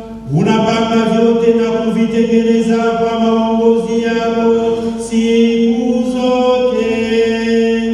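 Liturgical chant sung during an ordination Mass, in slow phrases of long held notes.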